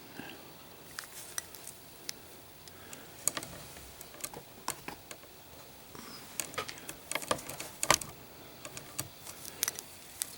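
Zippo Armor lighter with its extra-thick brass case being flicked open and snapped shut several times: a run of sharp metallic clicks and clinks, densest and loudest about seven to eight seconds in.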